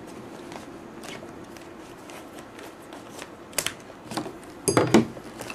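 Scissors cutting through the stiff plastic outer pouch of a military MRE: scattered small snips and clicks, then a louder, brief rustle of the plastic near the end.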